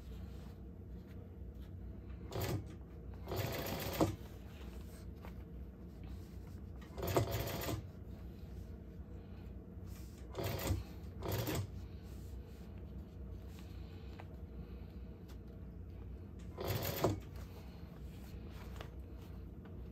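Juki industrial sewing machine stitching in six short runs, each under a second, with a steady low hum between them.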